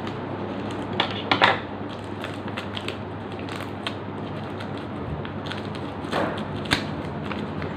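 A plastic courier mailer being crinkled and torn open by hand, with sharp crackles about a second in and again near the end.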